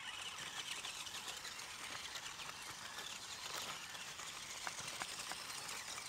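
Faint crackling and rustling of a small RC rock crawler's tyres rolling over dry leaves, twigs and loose dirt, with a couple of small sharp ticks near the end.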